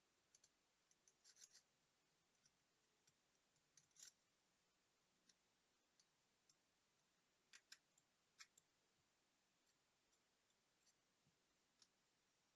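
Near silence with faint, scattered small clicks and taps, a few bunched together, from small tools handling tiny watch parts.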